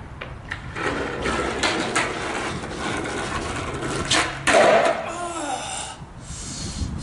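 Skateboard wheels rolling over rough asphalt, with a few clacks and scuffs from the board and shoes. The loudest clack comes about four and a half seconds in. The rolling dies down near the end.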